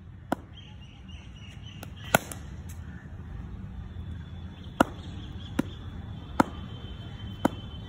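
Cricket ball knocking on the bat and the concrete practice pitch during net throwdowns: a series of single sharp knocks spread through, the loudest about two seconds in, over a steady low outdoor hum.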